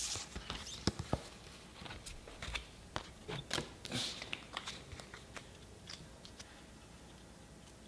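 Pokémon trading cards being handled and set down on a wooden table: a run of light clicks and slaps with soft rustling, thinning out over the last couple of seconds.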